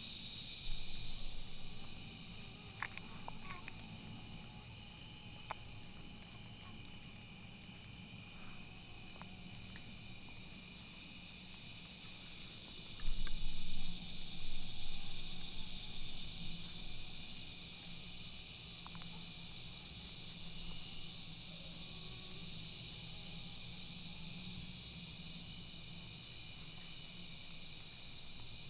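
Insect chorus of crickets and other night-singing insects in the woods: a steady high-pitched buzzing that swells from about the middle on, with short high rasps now and then.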